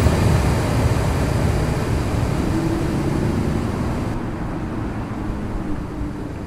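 Steady rushing road-traffic noise that slowly fades away.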